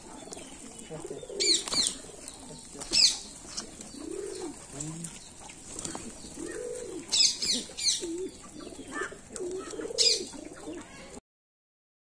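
Domestic pigeons cooing, low rolling coos repeating every second or two, mixed with louder sharp, high, falling chirps from other birds. The sound cuts off abruptly near the end.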